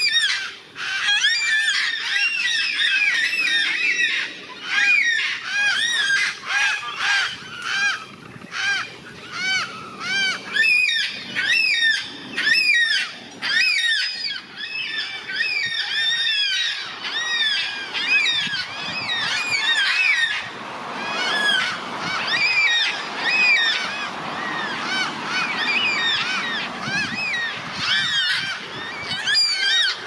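A large flock of yellow-tailed black cockatoos calling: many loud wailing calls, each rising and then falling in pitch, overlap one another without a pause.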